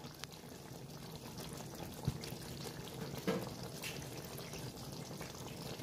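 Thick chicken korma gravy bubbling at a simmer in a pot, with a few sharper pops as large bubbles burst.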